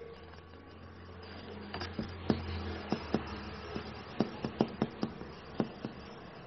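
Pages of a thick paperback book being flicked past the thumb, a run of quick irregular ticks over a faint low hum.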